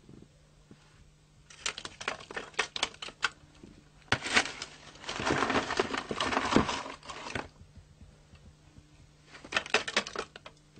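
Clattering handwork: quick runs of sharp tapping clicks about a second and a half in, again around four seconds and near the end, with a rougher scraping stretch in the middle, over a faint steady low hum.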